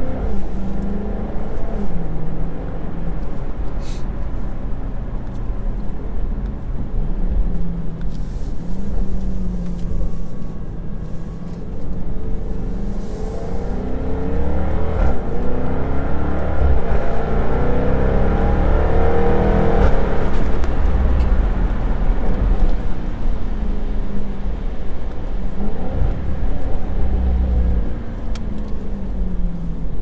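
Jaguar F-Type V8 S's supercharged 5.0-litre V8 heard from inside the cabin while driving, its note stepping up and down with gear changes. About halfway through it pulls harder, the pitch rising in several steps, then it settles back to cruising.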